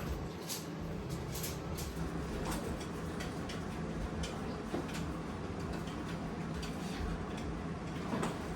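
Indoor room tone with a steady low hum and scattered light clicks and taps.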